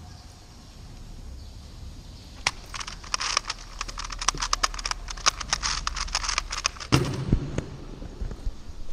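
A Rubik's Clock being solved at speed: a rapid run of sharp clicks from its pins and turning dials, then a heavy thud about seven seconds in as the puzzle is put down and the stackmat timer is stopped.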